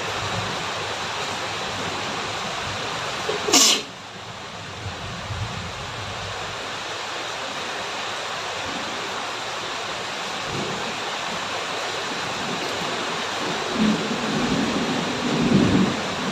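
A woman sneezes once, sharply, about three and a half seconds in, over a steady hiss of rain. The sneezing was set off by getting wet in the rain.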